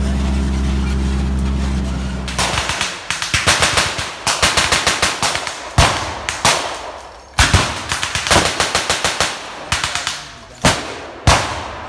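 A tracked armoured vehicle's engine runs steadily for about two seconds. Then machine guns open up with blanks in rapid bursts, with several single louder shots in between.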